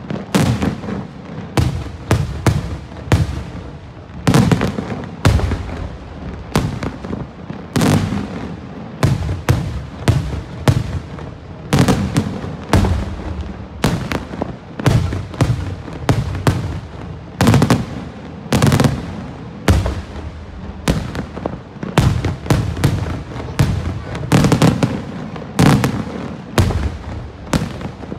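Daytime aerial fireworks barrage: shell bursts go off as a dense, irregular string of loud bangs, often several a second and some in tight clusters, with a low rumble of echo between them.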